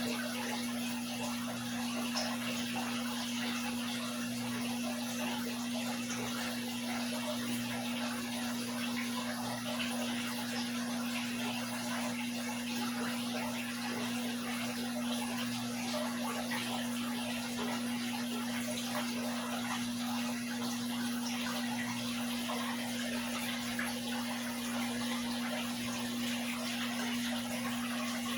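Aquarium water splashing and bubbling steadily, with an even hiss of falling water over a steady low hum.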